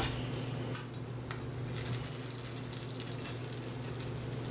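Pancake batter sizzling in a frying pan on a gas stove, with a spatula working at it and two light clicks about a second in. A steady low hum runs underneath.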